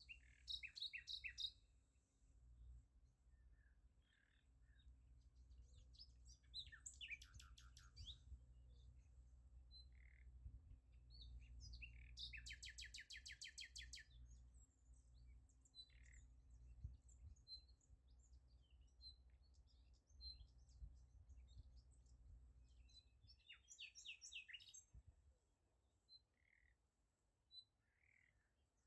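Faint bird chirps and short trills in scattered bursts. The longest is a fast trill of evenly repeated notes about twelve seconds in, lasting some two seconds. A faint low steady rumble runs underneath.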